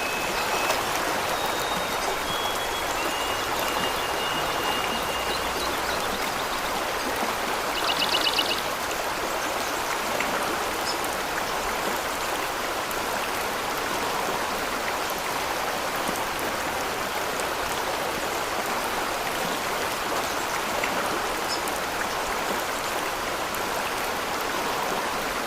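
Steady rushing of falling water from a waterfall. A few high whistled notes sound in the first few seconds, and a short high trill about eight seconds in is the loudest moment.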